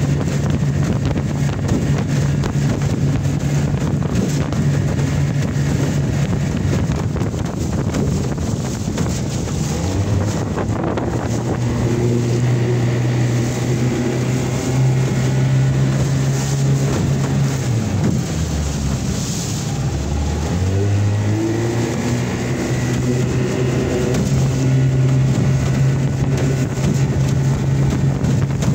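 A 1991 Johnson 20 hp two-stroke tiller outboard running at full throttle on a 14-foot aluminum boat, with wind buffeting the microphone. About eighteen seconds in, the engine note drops sharply, then climbs back up to full speed within a few seconds.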